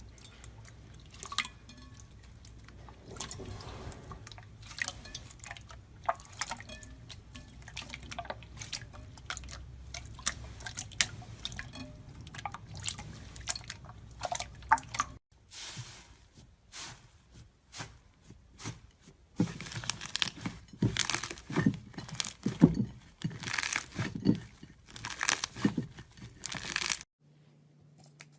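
Slime being squeezed and poked by hand, making many small sticky pops and clicks. About halfway through, the sound changes abruptly to louder, crisper pops.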